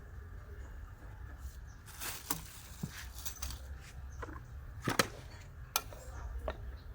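A few scattered knocks and clicks, the loudest about five seconds in, over a low steady hum.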